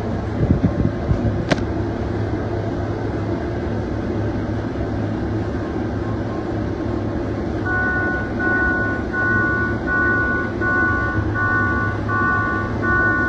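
Combine running steadily, heard from inside the cab while it cuts soybeans, with a sharp click about a second and a half in. Past halfway a cab warning beeper starts, repeating about one and a half times a second. This is the grain-tank-full alarm, as the tank is near full.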